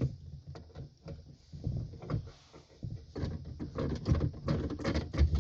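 Irregular clicks, knocks and rubbing of a wrench and hands working a tight radio ground bolt.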